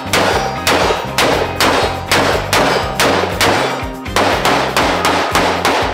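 Daniel Defense AR-style rifle fired rapidly in semi-automatic, about two sharp shots a second with a short echo after each, over background music.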